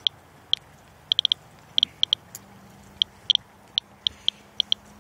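Geiger counter clicking at random intervals, about seventeen sharp high clicks in five seconds, some bunched in quick runs. It is counting radiation on a car hood after rain at roughly 150 to 170 counts per minute, a rate the owner calls not normal against a background of about 40. A faint low hum comes in about two seconds in.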